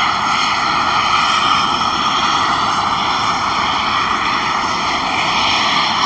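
Steam jetting out of the ground from a fumarole vent with a steady, loud roar.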